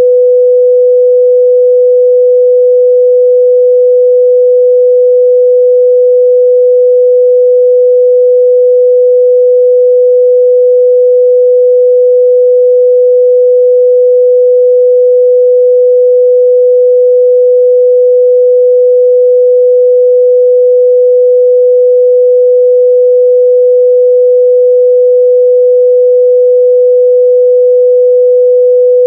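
A pure 497 Hz sine-wave test tone, held steady and loud at one unchanging pitch with no other sound.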